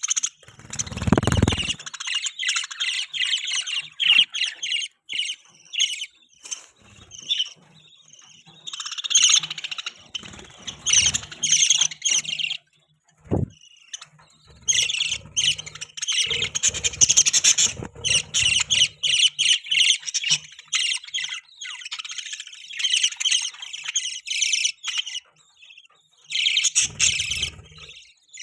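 Budgerigars chirping and chattering in rapid bursts of high, warbling notes, with short pauses between bursts. A low thump sounds about a second in.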